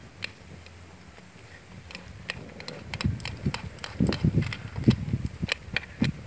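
Chopsticks clicking and scraping against a metal wok as noodles are stirred: irregular sharp clicks, sparse at first, then louder and busier from about three seconds in.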